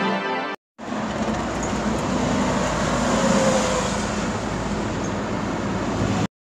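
Steady vehicle-like rumble and roar that cuts in abruptly after a brief silence and stops just as suddenly near the end.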